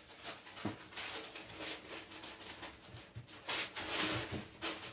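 Newspaper crackling and rustling as a snake's body drags and thrashes across it, in a string of short rustles that are loudest about three and a half to four and a half seconds in.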